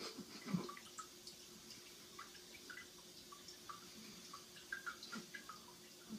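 Cat urinating into the water of a toilet bowl from the seat: faint, irregular drips and trickles, with one louder drop about half a second in.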